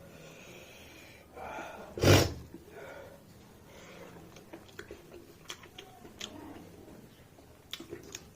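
A person sneezes once, loudly, about two seconds in, between breathy exhales. Then come scattered small wet clicks of eating: mouth smacking and chewing.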